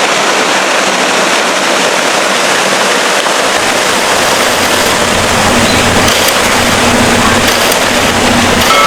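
Small waterfall pouring into a pool: a loud, steady rush of water that grows a little deeper about halfway through.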